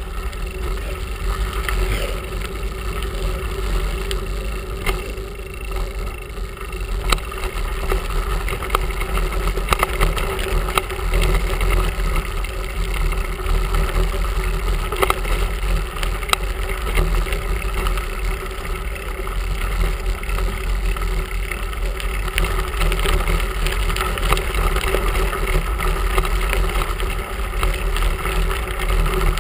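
A bicycle rolling along a gravel path, recorded from a handlebar-mounted camera: a steady rumble of wind on the microphone and tyre noise, with scattered rattles and clicks from the bike.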